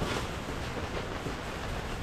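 Steady background hiss with a few faint clicks from the throttle grip housing being taken apart by hand on the motorcycle's handlebar.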